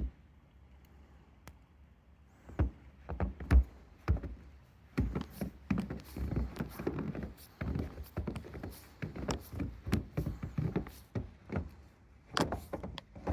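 A string of irregular knocks, thumps and sharp clicks. They are sparse at first and come thick and fast from about the middle on.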